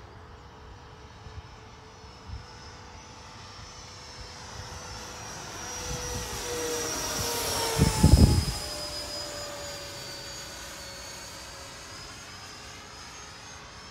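Turbine-powered radio-controlled model jets flying a formation pass, their whine swelling to its loudest about eight seconds in with a brief low rumble, then fading. The high turbine whistles drop in pitch as the jets go by.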